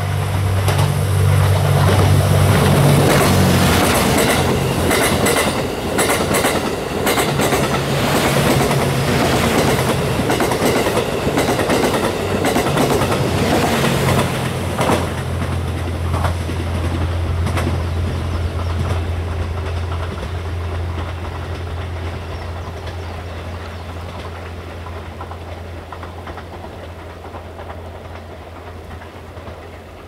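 Twilight Express Mizukaze, a diesel-electric railcar train, passing at speed: a steady low engine drone with wheels clicking rapidly over rail joints, loudest in the first few seconds. The clicking thins out about halfway through and the drone fades as the train pulls away.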